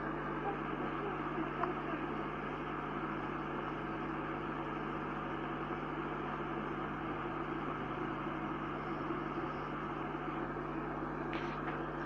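Kettle boiling: a steady, even rushing bubble-noise with a low hum beneath it.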